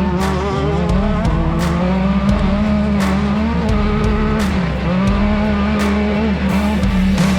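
Off-road race car engine revving, its pitch climbing and falling again and again as it runs through the gears, with music and a regular beat underneath.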